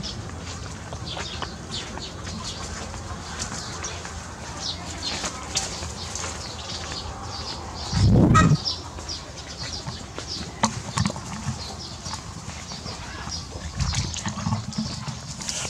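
Microphone handling noise from the camera being swung about: a loud low rumble about halfway through and a smaller one near the end. Under it run many short, high animal chirps and calls.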